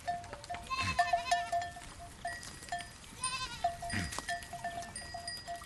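Goats bleating: two wavering bleats, one about a second in and another past the three-second mark. Behind them runs a rapid series of short, light clinking notes.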